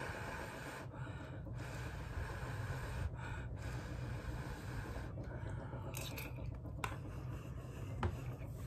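A person chewing a mouthful of beef tips and pasta, faint mouth and breathing noises over a low steady hum, with a couple of small clicks about six and seven seconds in.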